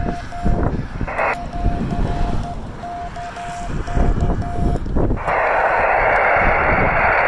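Morse code (CW) beeping from the 10 GHz radio, a steady mid-pitched tone keyed in dots and dashes, over strong wind buffeting the microphone. About five seconds in the keying stops and a loud steady hiss of receiver noise comes on.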